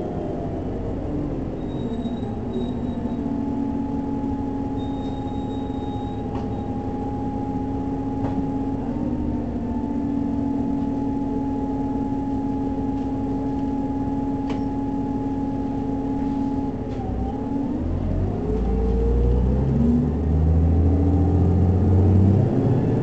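City bus engine and transmission heard from inside the passenger cabin: a steady whine over a low rumble while cruising. About three quarters of the way through the whine drops in pitch, then the engine grows louder and rises in pitch as the bus speeds up again.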